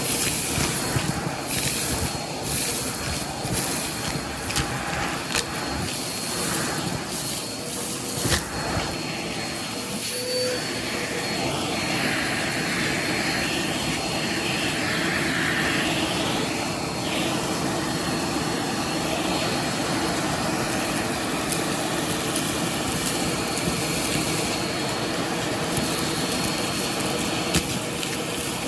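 Vacuum cleaner running steadily with a thin high motor whine, its dusting brush attachment being worked over a surface, with one brief knock about eight seconds in.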